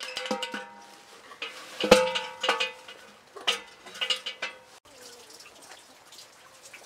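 Aluminium milk can clanking on the well's metal cable and hook as it is lowered into the well: a string of sharp metallic knocks, some ringing on, the loudest about two seconds in.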